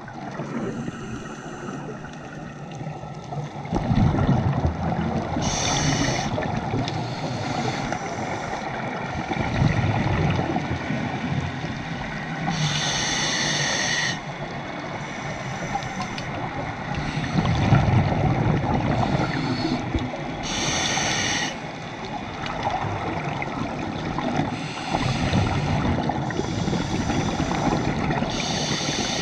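A scuba diver breathing through a regulator, heard underwater. A hissing rush comes on each inhalation, about every seven to eight seconds, and alternates with low bubbling bursts as each exhalation vents bubbles.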